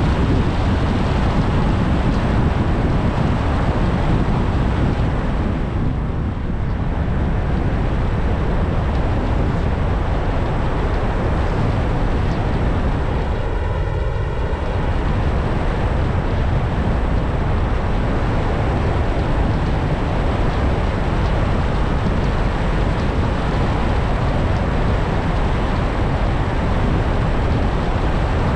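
Steady road and wind noise of a car driving at speed, with a brief hollow, phasing change in tone about halfway through.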